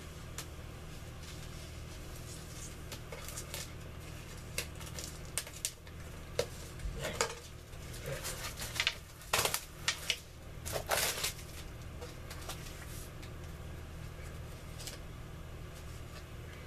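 Packaging and stickers being handled by hand: scattered rustles, crinkles and light clicks that are busiest in the middle, with a few louder scrapes around ten seconds in. A steady low hum runs underneath.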